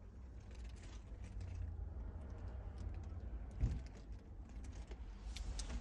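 Low steady rumble inside the cabin of a 2022 Hyundai Tucson, with scattered light ticks and crackles and a soft bump near the middle.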